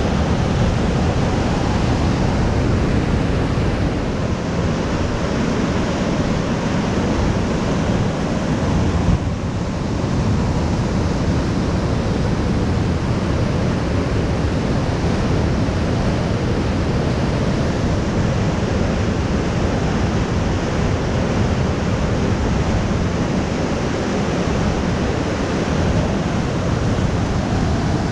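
Steady, loud roar of whitewater pouring over rocky falls and rapids.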